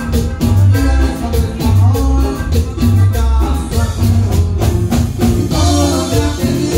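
Live norteño band playing a cumbia: button accordion melody over electric bass, guitar and drum kit, with a steady pulsing bass beat.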